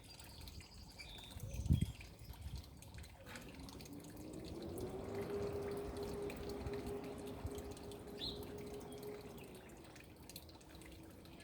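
Water dripping and trickling, with a dull thump about two seconds in. From about four seconds in, a droning hum rises in pitch and swells, holds, then fades near the end.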